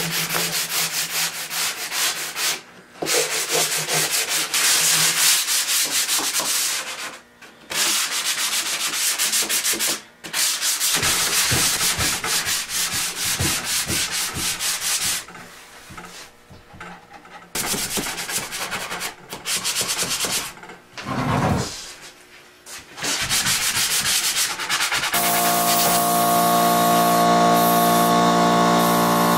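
Hand sanding of varnished barn wood with a sanding sponge: fast back-and-forth scratchy strokes in long stretches with short pauses, a light scuff-sand of the cured varnish before the next coat. About 25 seconds in, a steady electric motor hum starts and runs on.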